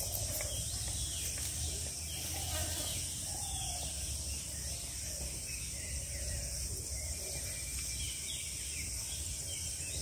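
Steady high-pitched drone of insects, with a few faint short bird calls and a low rumble underneath.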